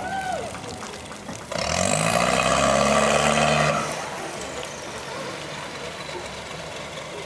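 Small tugboat's engine throttling up hard for about two seconds, with heavy churning noise, then dropping back to a steady lower running sound as the tugs push against each other.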